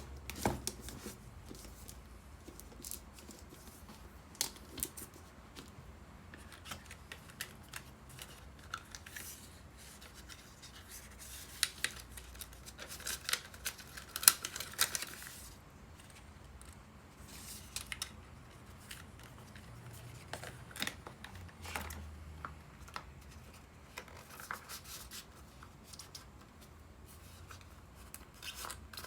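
Hand handling sounds of packaging being opened: scattered light clicks and scrapes, with a longer stretch of tearing and rustling about halfway through.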